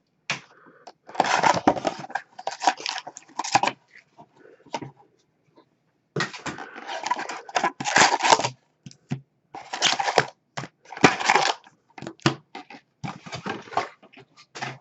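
Plastic shrink-wrap and wrapping crinkling and tearing in rapid, irregular bursts as a sealed trading-card box is cut open with a knife and unwrapped. There is a short pause about four seconds in.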